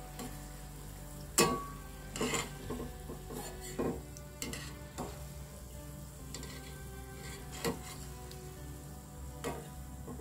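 Balls of idli batter sizzling as they deep-fry in hot oil in a steel pan. A steel slotted ladle scoops them out, knocking and scraping against the pan several times; the sharpest knock comes about a second and a half in.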